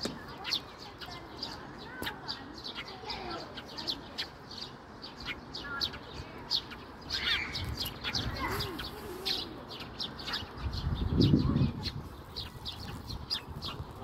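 Small birds chirping busily, many short high chirps a second overlapping throughout. A brief low rumble swells and fades about eleven seconds in.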